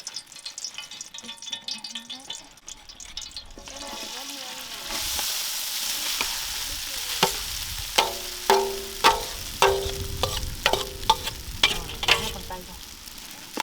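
Stir-frying in a metal pan: a steady sizzle starts about five seconds in, then a metal spatula knocks and scrapes against the pan about ten times, each knock leaving a short ringing tone.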